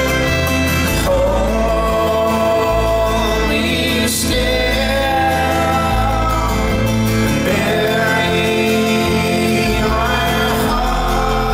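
Live acoustic folk band playing: acoustic guitar, banjo and upright double bass, with voices singing over changing bass notes.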